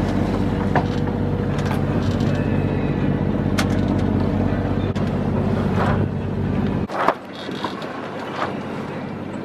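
A sailing yacht's inboard engine running steadily, with sea water and wind noise and a few sharp knocks. About seven seconds in, the engine hum drops away abruptly, leaving only the quieter wash of water and wind.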